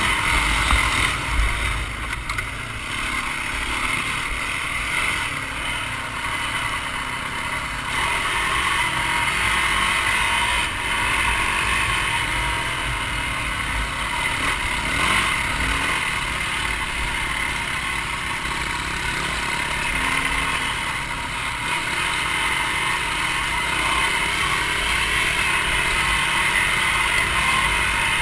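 Dirt bike engine running steadily at riding speed on a dirt track, with wind noise buffeting the helmet-mounted microphone.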